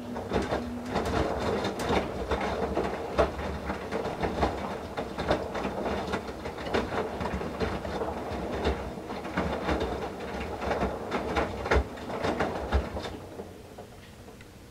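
Whirlpool Duet WFW97HEDC front-loading washer's drum tumbling a load of wet towels in the main wash: water sloshing and towels splashing and knocking as they drop, one tumble that starts abruptly and dies away near the end.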